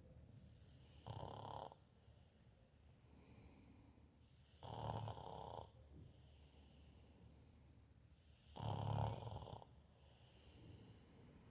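Someone asleep snoring: three snores about four seconds apart, each lasting under a second.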